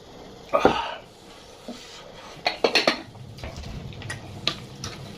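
Dishes and cutlery clattering at an eating table: a loud knock about half a second in, a quick run of sharp clinks and clicks around two and a half seconds in, then lighter ticks.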